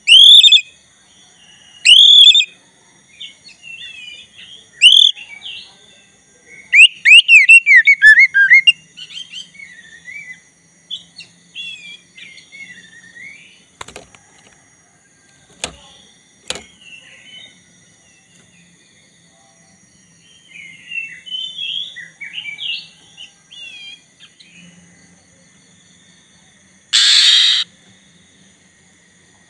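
Oriental magpie-robin of the black-breasted form singing: loud, clear whistled notes at first, a fast run of sliding whistles about seven seconds in, then softer warbling phrases. A few faint knocks come in the middle, and a short loud rasping burst comes near the end.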